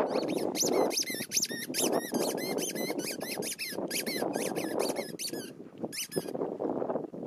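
Squeaky ball being chewed by a dog: rapid high-pitched squeaks, several a second, that stop near the end.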